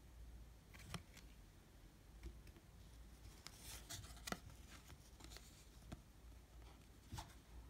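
Faint, scattered ticks and rustles of baseball cards being slid one behind another by hand, with a small cluster of them in the middle.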